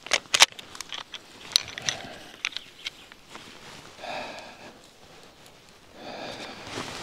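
A string of sharp clicks and clacks over the first three seconds as a hunting rifle is unloaded, followed by slow, audible breaths about every two seconds.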